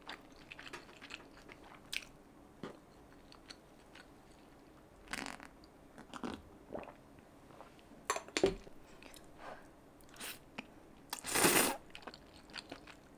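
A person eating close to the microphone: intermittent crunchy bites and chewing, with one louder crunch near the end.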